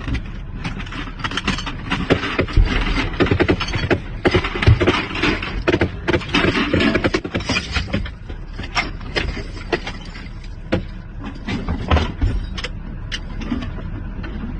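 Military Humvee running, with a steady noise and many irregular sharp knocks and rattles, busiest in the first half.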